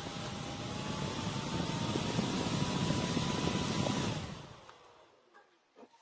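Small handheld battery fan running with a steady airy whoosh and a thin motor whine. About four seconds in it stops: the whine glides down and the whoosh dies away within a second.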